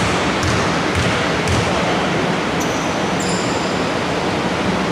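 A basketball bounced a few times on a hardwood court in about the first second and a half, as a player dribbles at the free-throw line, over a steady hiss of hall noise. A couple of brief high squeaks come near the middle.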